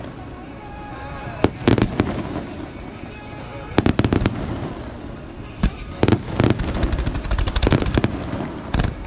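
Aerial fireworks bursting overhead: repeated sharp bangs, some single and some in quick runs of many reports, with a few bigger clusters about a second and a half, four seconds and six to eight seconds in.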